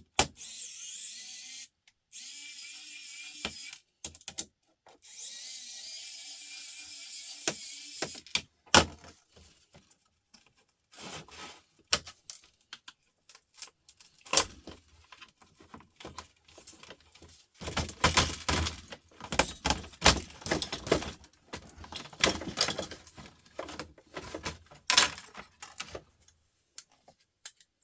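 Small electric screwdriver running in several short bursts, backing screws out of a laptop. After about eight seconds it stops, giving way to irregular clicks, knocks and clatter of plastic and metal laptop parts being pried apart and handled.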